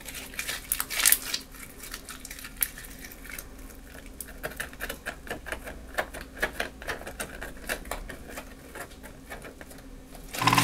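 Clear glue slime being stretched and poked by hand, giving a steady string of small, irregular clicks and pops. A loud burst of music cuts in right at the end.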